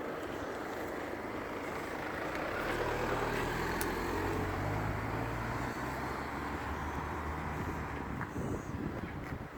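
A motor vehicle's engine running, its low hum coming in about two and a half seconds in and dying away near the end, over steady road noise.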